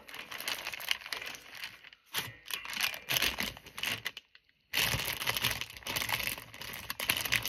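Paper and packaging crinkling and rustling as items are handled, with a short pause a little past the middle.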